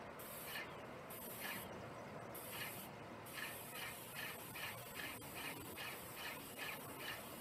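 Airless paint sprayer hissing as stain is sprayed onto a wooden fence, with a high chirp repeating about three times a second through most of it.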